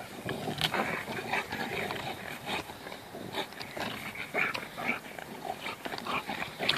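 Two yellow Labrador-type dogs play-growling and grunting as they tug a stick between them, an irregular run of short rough noises.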